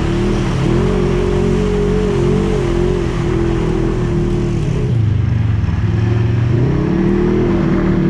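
Off-road vehicle engine running under changing throttle, with a steady rush of noise over it. The engine pitch wavers, falls off about five seconds in and climbs again about a second and a half later.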